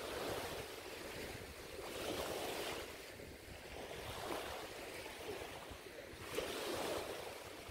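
Small sea waves washing and lapping in shallow water, swelling and easing about every two seconds, with wind on the microphone.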